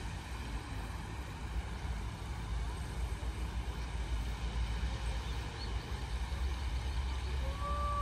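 Open-air ambience: a steady low rumble that wavers in loudness, over a faint even hiss from the spraying jets of a pond fountain. Near the end a brief flat tone sounds.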